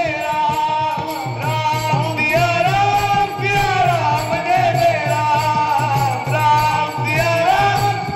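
Marathi devotional kirtan singing by a lead voice and a chorus, with long drawn-out, gliding notes. Small brass tal hand cymbals clink in a steady rhythm under the singing.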